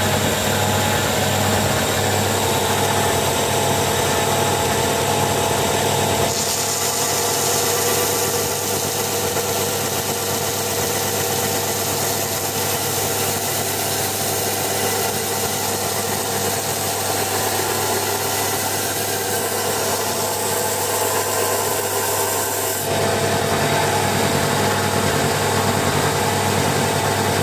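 Bench belt sander running with a steady motor hum. From about six seconds in to about twenty-three seconds, a small turned wooden ball is held against the moving belt, adding a rasping sanding noise over the hum.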